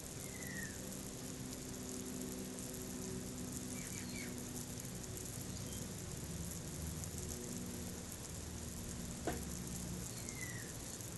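Steady hiss of water spraying from a garden hose onto plants, with a low steady hum underneath and a few short bird chirps. A brief sharp sound sweeping downward in pitch stands out about nine seconds in.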